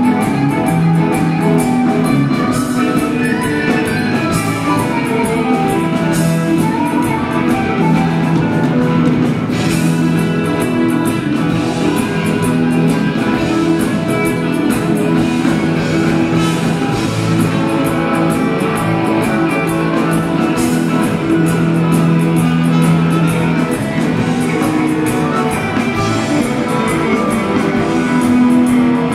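Live rock band jamming: electric guitars playing over keyboards and a drum kit, loud and continuous.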